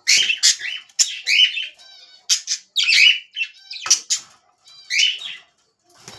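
Small pet parrots squawking and chirping in short, harsh calls about once a second, falling quiet near the end.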